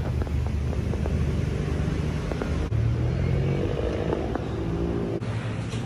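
Street traffic: vehicle engines running, a steady low rumble with cars and scooters nearby.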